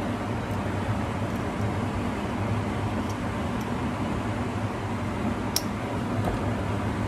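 Kitchen exhaust fan running steadily with a low hum, with a single sharp click a little past halfway.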